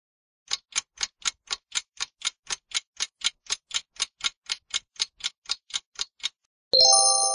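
Quiz countdown timer sound effect: a clock ticking evenly at about four ticks a second. Near the end the ticking stops and a bright multi-tone chime rings out and fades, marking the end of the answer time.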